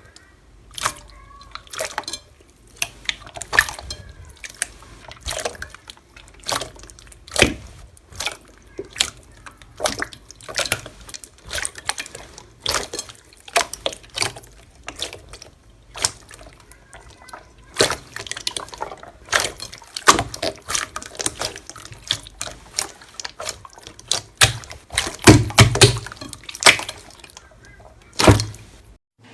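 Slime being squished and pressed by hand, giving an irregular run of sharp, wet clicks and pops. A louder cluster of pops comes near the end.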